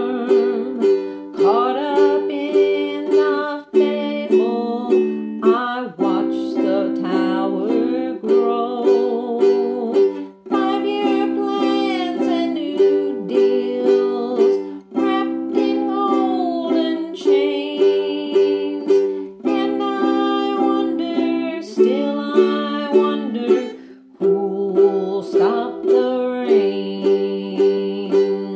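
Ukulele strumming chords for a song in the key of G, with a voice singing along over the strumming.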